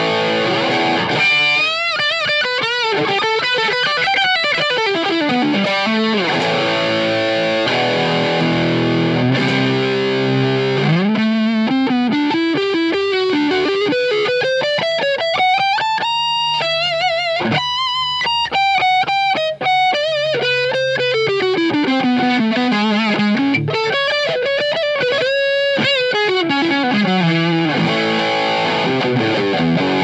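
Electric guitar, a budget Chibson Les Paul copy, playing a melodic single-note lead. Its wavering, vibrato-held notes run down early on, climb to high sustained notes in the middle, then come back down.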